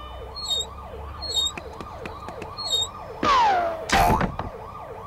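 Cartoon sound effects: a siren-like wail repeating about four times a second, with faint high tinkles, then a loud falling whistle about three seconds in and a crash near the end.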